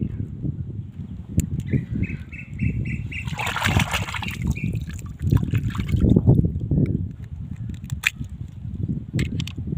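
River water splashing and sloshing as small crabs are broken apart and rinsed by hand at the water's edge, with the loudest splash a little over three seconds in, over a low continuous rumble. A short run of quick high chirps sounds about two seconds in, and a few sharp clicks come near the end.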